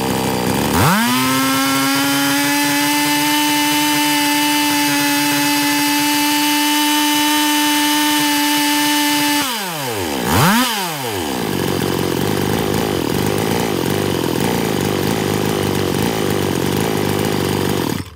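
Counterfeit Stihl MS 280 chainsaw's two-stroke engine under carburettor adjustment: revved to high speed and held steady for about eight seconds, dropped back, blipped once, then running at low speed before cutting out at the end. It runs well at high revs but won't hold an idle, which the owner first takes for fuel starvation and then suspects is a bent crankshaft.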